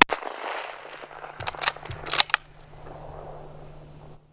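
A single gunshot at the very start as a coyote is shot, its report rolling away for about a second and a half. Several sharp clicks and knocks follow around two seconds in.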